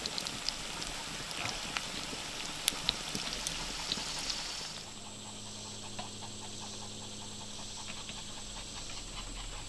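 A dog panting, with scattered sharp clicks in the first half; after a cut about halfway through, a steady low hum takes over.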